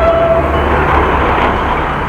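A road vehicle passing close by: its noise swells to a peak about a second in and then eases off, over a steady low rumble.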